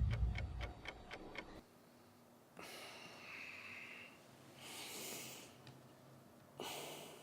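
Steady ticking, about four ticks a second, stops about a second and a half in as a low rumble dies away. After a brief hush come three soft rushing sounds, each a second or so long.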